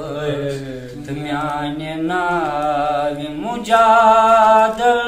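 A man chanting Kashmiri verse in a slow, sung recitation with no accompaniment, holding each note long with small wavers. About three and a half seconds in, his voice steps up in pitch and grows louder.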